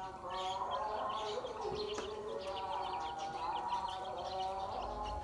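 Domestic hen and her chick calling softly: a run of short, high chick peeps, several a second, over a lower, steadier call.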